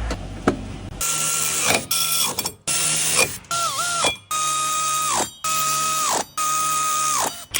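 A power tool, such as an electric impact wrench or ratchet, runs in about seven short bursts of half a second to a second, as when undoing bolts while a transfer case is being removed. Its motor whine drops in pitch each time the trigger is released.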